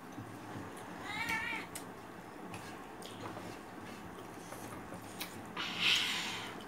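A single short, high, wavering cry about a second in, among scattered small clicks of eating; near the end a brief breathy hiss.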